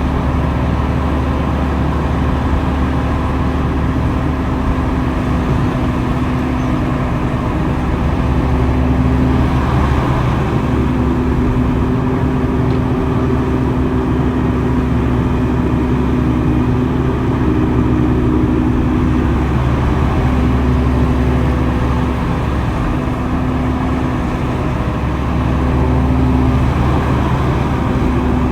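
Diesel engine of heavy earthmoving machinery running steadily under load, a continuous low hum with a held tone that dips briefly a few times.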